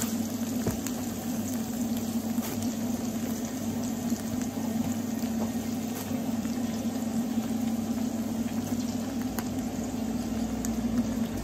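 Chopped leeks being dropped by hand into a large hot stockpot of vegetables, a light patter with a few soft ticks, over a steady low hum.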